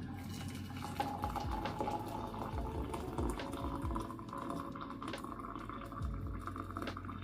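Water rushing and bubbling in an electric kettle, with a few light knocks, over a faint steady music bed.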